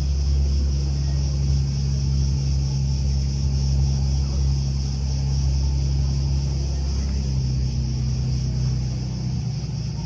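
Steady low engine hum with a constant high buzz over it; the hum's pitch dips slightly about seven seconds in.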